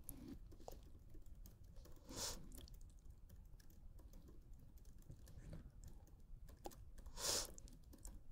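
Computer keyboard being typed on, a steady run of quick, faint key clicks as a sentence is typed out. Two short, louder noises stand out, about two seconds in and near the end.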